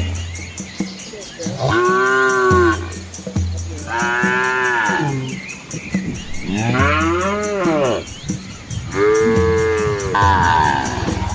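Cattle mooing, about five long calls one after another, each rising then falling in pitch.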